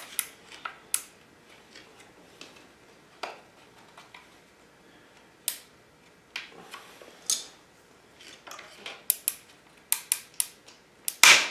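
Scattered small clicks, ticks and scrapes of a zip tie being threaded through and pulled around a plastic swingarm protector, with one sharp snap near the end.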